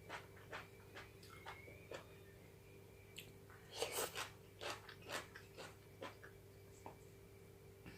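Close-up chewing and crunching of cooked chicken bones: a string of irregular crisp crunches, with a louder run of bites about four seconds in. A faint steady hum lies underneath.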